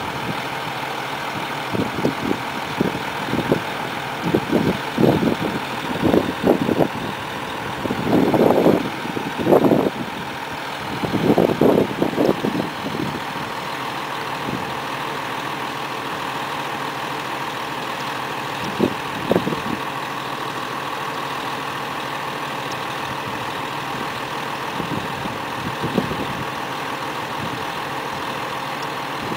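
Heavy diesel truck engines idling steadily, with a faint steady whine. The idle is broken by irregular short bursts of rumbling noise, loudest about eight to thirteen seconds in, with a couple more later.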